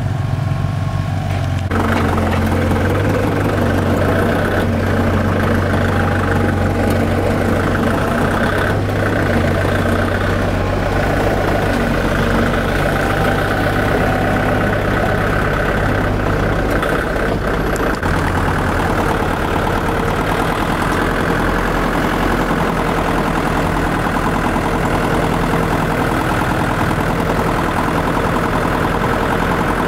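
Motor vehicle engine running steadily close by, picking up about two seconds in and then holding an even speed.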